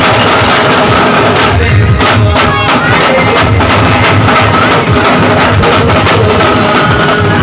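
A group of dhol drums played together with sticks, a loud, dense, driving beat that keeps going without a break.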